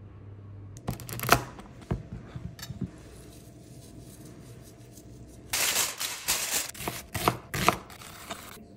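Chef's knife chopping onion on a cutting board: a run of quick strokes in the second half. A few sharp knocks come about a second in.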